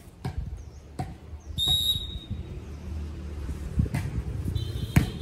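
Volleyball being struck several times, sharp slaps with the loudest near the end, with a short high whistle blast about two seconds in and another high tone shortly before the last hit.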